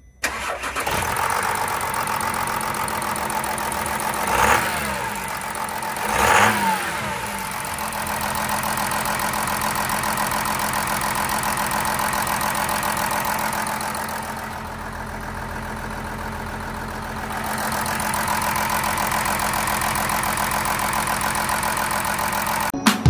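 2021 Volkswagen Amarok engine running at idle, blipped twice in quick succession about four and six seconds in, then settling back to a steady idle. The idle dips slightly quieter for a few seconds in the latter half.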